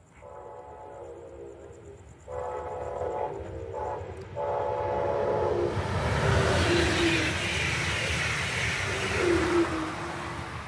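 Brightline passenger train blowing its horn in the long-long-short-long grade-crossing signal as it approaches, the first blast fainter than the rest. About six seconds in, the train rushes past with a loud roar of wheels and air.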